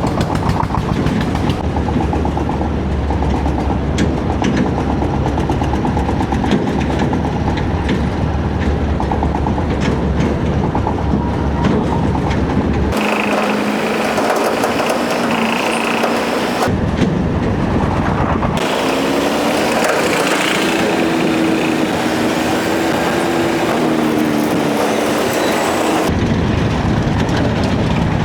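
Diesel engines of heavy machinery running, with a steady low rumble. The sound changes abruptly several times, dropping its low rumble in places.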